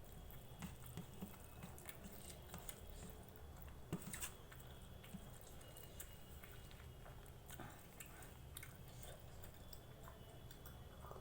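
Faint chewing and eating sounds of rice and vegetable curry, with scattered soft clicks and a sharper click about four seconds in.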